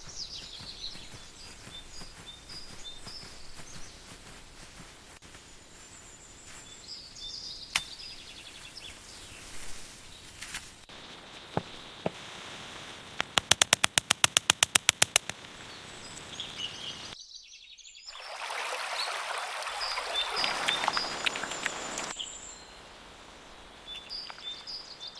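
Birds chirping over a faint, steady high-pitched background. Midway comes a rapid series of about a dozen sharp clicks, and a few seconds later some louder rustling or scraping noise.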